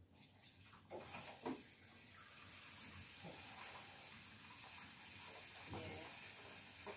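Kitchen tap running steadily into a stainless steel kettle in the sink. The water comes on about two seconds in, just after a couple of light knocks.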